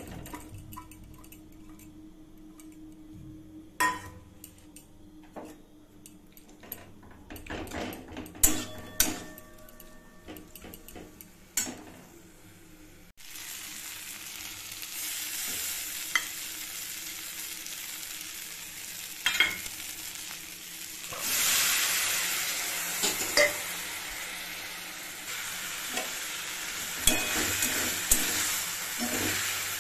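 Chopped onion and tomato frying in a steel wok on a gas burner, a flat steel spatula scraping and clinking against the pan as it is stirred. About halfway through the sizzle gets louder and runs steadily, with the spatula knocking on the pan now and then.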